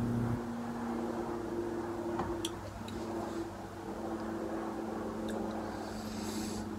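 A steady motor drone, shifting slightly in pitch about three seconds in, with a few faint clicks.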